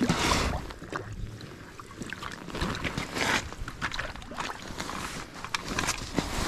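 A splash as a smallmouth bass is dropped back into an ice-fishing hole, then wind on the microphone with rustling and handling noises.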